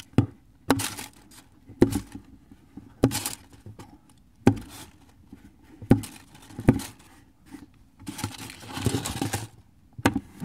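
Finger flicks and taps at a beetle in a porcelain basin: about eight sharp clicks and knocks, irregularly spaced. About eight seconds in comes a stretch of tissue paper crinkling.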